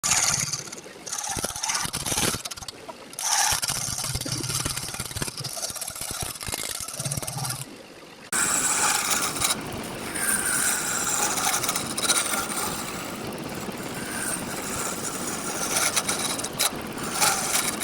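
Woodturning lathe and a hand tool working wood: intermittent knocks and scrapes, then, about eight seconds in, a continuous hissing scrape of the tool cutting the spinning wood starts abruptly.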